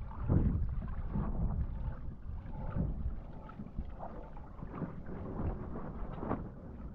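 Wind buffeting the microphone in uneven gusts while wingfoiling, with the rush of water around the board.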